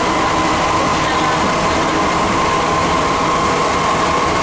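Santiago Metro Line 2 train running underground, heard from inside the carriage: a steady, loud rumble with a continuous whine.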